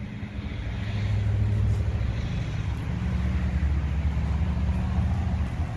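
A vehicle engine running: a steady low hum that shifts lower about three seconds in.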